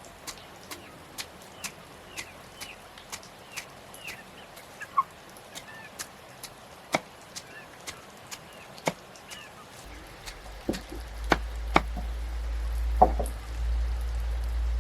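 Steady chopping, about two sharp strokes a second, with chicks or hens peeping in between. About ten seconds in, a low rumble comes in and a few heavier chops follow.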